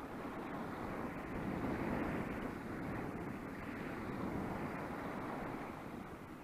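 Wind buffeting the microphone in uneven gusts, a rough, rumbling noise.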